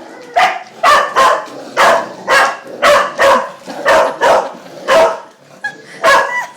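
Black Russian Terrier barking over and over, about two loud barks a second.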